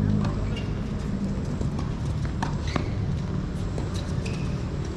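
Tennis ball being struck by rackets and bouncing on a hard court: irregular sharp pocks, with a steady low hum underneath.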